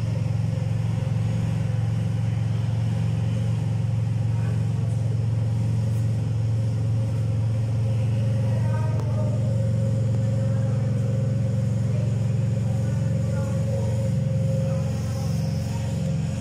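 A machine running steadily at a constant speed, giving a loud, low, unchanging hum.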